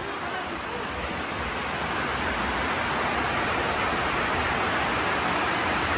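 Rain falling steadily on the roof, heard from inside a wooden house as an even hiss that swells a little from about two seconds in.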